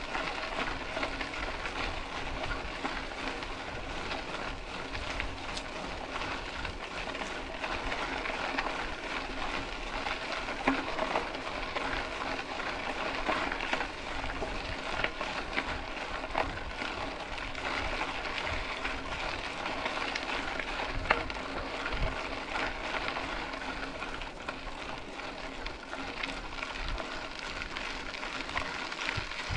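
Mountain bike rolling along a dirt road: a steady crackling hiss of tyres on gravel, with scattered small clicks and rattles.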